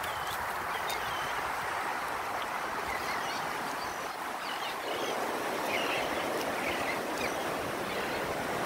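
Steady wash of Gulf surf on the beach, growing fuller about halfway through, with many faint short bird chirps scattered over it.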